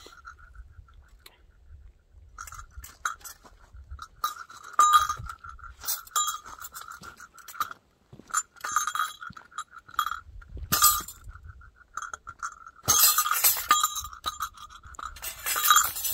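Footsteps crunching on a dirt mountain trail, irregular and sometimes in quick clusters. Under them a high, steady ringing swells and fades.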